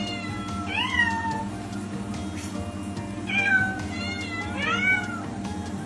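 Domestic cat meowing about four times, each meow rising then falling in pitch, over background music.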